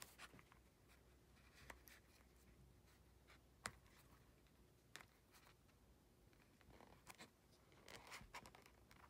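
Near silence with faint scratching and a few light clicks of a large needle and waxed thread being worked against leather, the needle sticking in a tight pre-punched stitching hole.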